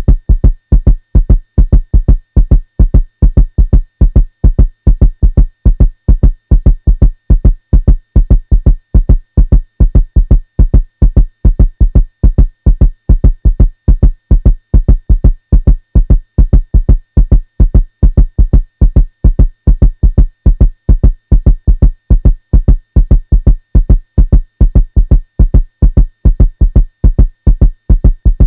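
Heartbeat sound effect: a fast, steady run of deep, low thumps, a few a second, keeping the same pace throughout.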